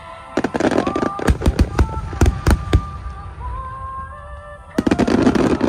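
Aerial fireworks shells bursting in quick volleys: a dense run of bangs from about half a second to nearly three seconds in, and another burst of them near the end. Music with long held notes plays throughout.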